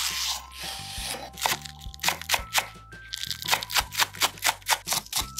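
Chef's knife slicing large green onion on a wooden cutting board: scattered cuts at first, then a quick, regular run of knife strikes against the board, about four a second, from about halfway. Background music plays underneath.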